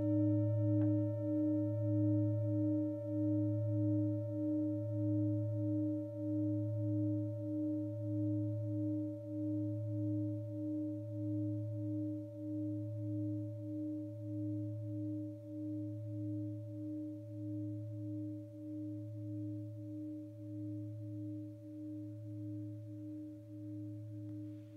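Acama singing bowl, struck with a hard mallet, ringing on and slowly fading. It sounds two main notes, about 312 and 118 hertz (D-sharp 4 and A2). The higher note wavers in an even beat about one and a half times a second.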